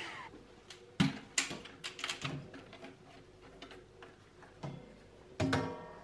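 Dyson V6 cordless handheld vacuum switching off, its motor winding down with a falling whine. Then a handful of scattered plastic clicks and knocks as the vacuum is handled.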